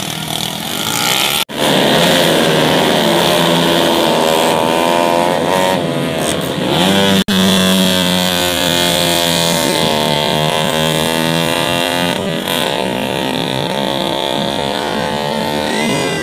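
Small racing motorcycle engines revving hard, their pitch rising and falling as the underbone race bikes accelerate and pass. The sound drops out briefly twice, about a second and a half in and again about seven seconds in.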